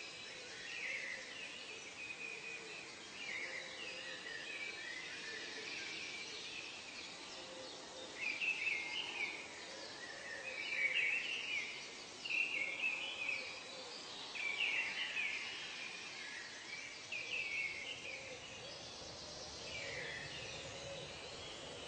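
Tropical forest ambience of birds calling: repeated chirpy calls overlap and are loudest in a cluster toward the middle, over a steady hiss of background noise.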